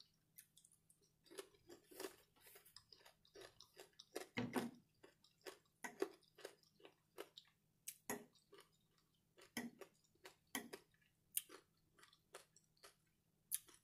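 Close-up eating of crispy bacon and French toast: soft, irregular crunches and wet mouth clicks of chewing.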